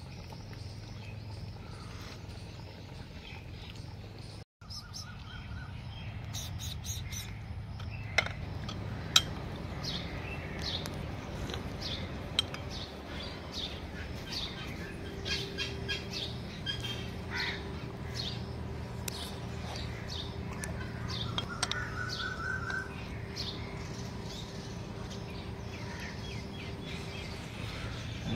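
Birds chirping and calling: many short chirps, with a quick run of repeated notes about five seconds in and again past the twenty-second mark, over a low steady background hum. A few sharp clicks sound between about eight and twelve seconds in.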